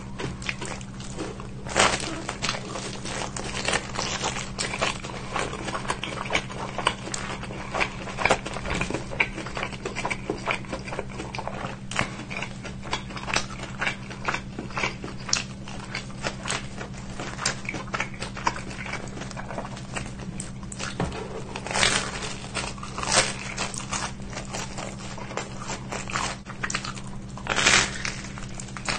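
Close-miked pizza eating: crunching bites into crisp crust and chewing, a dense run of small crackles with a few louder crunches about two seconds in, around twenty-two seconds in and near the end, over a steady low hum.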